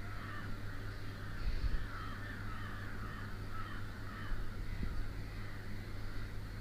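Crows cawing repeatedly over a low steady hum, with a spoon knocking against a clay pot a couple of times as sliced ginger is stirred in oil.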